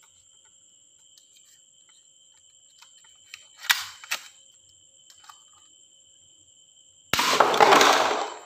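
Plastic toy gun: two sharp clicks a little before halfway, then a loud hissing burst about a second long near the end that fades away.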